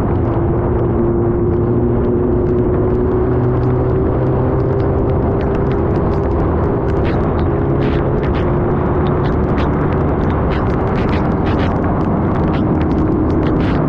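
Superbike engine running at a steady low speed, with wind and road rumble. Scattered sharp ticks come more often from about halfway through.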